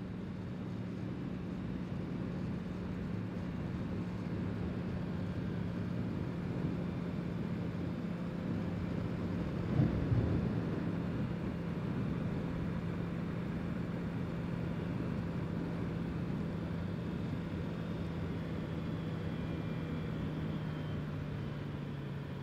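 Honda CBR650R's inline-four engine running steadily at cruising speed, with wind noise rushing over the microphone. There is a brief louder burst of noise about ten seconds in, and the engine note drops near the end as the bike slows.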